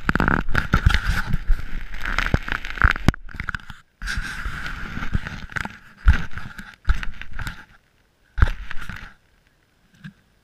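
Rumbling, scraping noise on a camera's own microphone as it sits low in the grass, from wind and handling, with irregular knocks. It breaks off twice and ends nearly quiet after about nine seconds.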